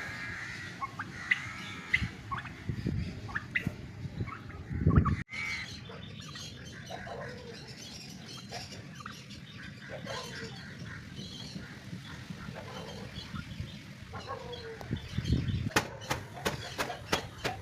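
Birds chirping with short, scattered calls, under low rumbling swells like wind on the microphone. There is an abrupt cut about five seconds in and a quick run of sharp clicks near the end.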